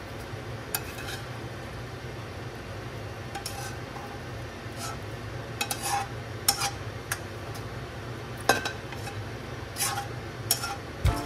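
Slotted spatula scraping and clinking against a pan as stir-fried broccoli is tipped and pushed out into a ceramic bowl: a dozen or so scattered clinks and scrapes over a steady low hum.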